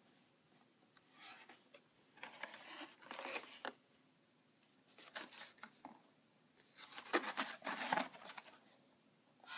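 Beyblade Burst starter set packaging being opened by hand: crackly spells of tearing and crinkling cardboard and plastic, four times, the loudest near the end.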